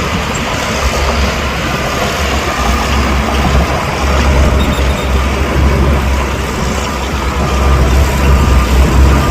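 Heavy diesel earthmoving machinery running under load, a deep low engine rumble with a noisy mechanical wash over it, getting a little louder near the end.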